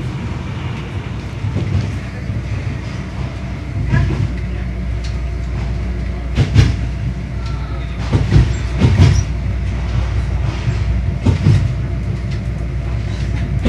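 Passenger train running, heard from inside the carriage: a steady low rumble of the wheels on the track, broken by a few sharp clacks at irregular intervals as the wheels cross rail joints or points.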